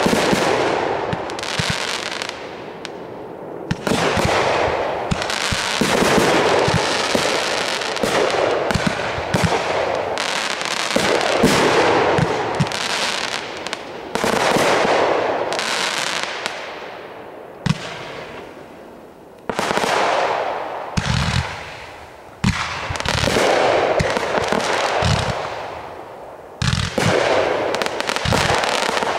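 Fireworks display: aerial shells and stars going off one after another, each sharp report trailing off into a hissing crackle before the next.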